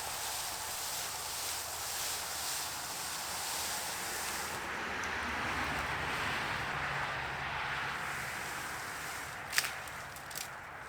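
Steady rushing outdoor noise that swells in the middle, with a faint low hum underneath and one sharp click near the end.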